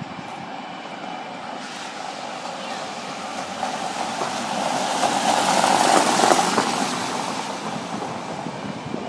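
A vehicle passing along the wet street: a rushing sound that swells to a peak about six seconds in and then fades.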